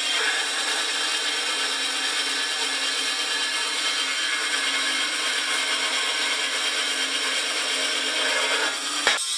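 Portable metal-cutting band saw running and cutting through a painted steel channel: a steady motor whine with the hiss of the blade in the steel. It breaks off with a sharp click near the end.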